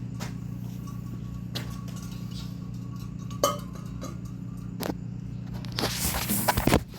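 Light clinks and clicks of hard objects being handled, over a steady low hum, with a short burst of busier handling noise about six seconds in.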